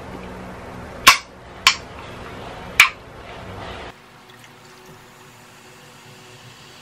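Three sharp clicks in the first few seconds, then cola being poured from a can into a glass mug of ice, faint under a steady background hiss.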